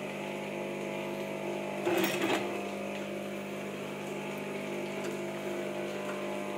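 Sewing machine running steadily while stitching fabric, with a brief louder burst about two seconds in.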